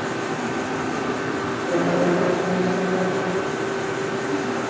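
DMG Mori Dura Vertical 635 Eco CNC vertical machining center running, its Y axis being jogged: a steady machine hum. A louder steady tone from the axis drive sounds for about a second and a half, starting nearly two seconds in.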